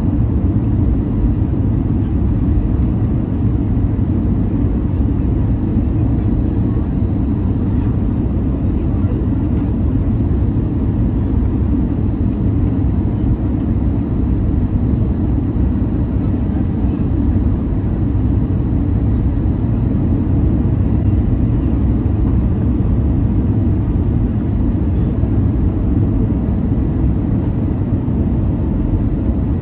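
Airbus A320 cabin on final approach, heard from a window seat over the wing: a steady, loud low rumble of airflow and engine noise.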